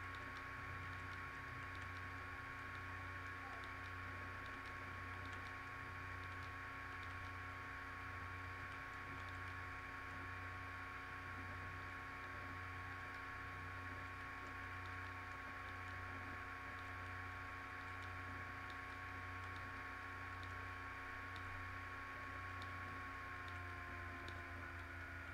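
Steady electrical hum made of several faint steady tones over light hiss, with a low throb that pulses about once a second. Two of the higher tones slide slightly lower near the end.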